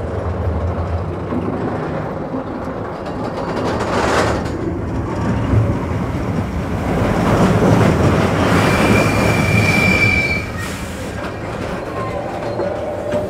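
Expedition Everest roller coaster train running along its track, heard from a rider's seat: a continuous rumble of wheels on rail. It swells for a few seconds with a brief thin high squeal, then quietens about ten seconds in as the train slows to a halt.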